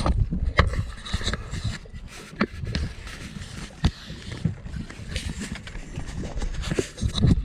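Wind rumbling on the microphone, with a few sharp knocks and clicks scattered through it.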